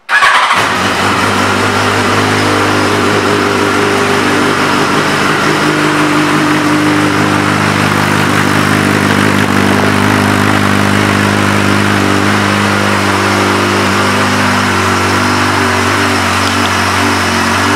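2006 Yamaha FZ1's 998 cc inline-four engine, breathing through an aftermarket carbon fiber exhaust, fires up and settles into a steady idle.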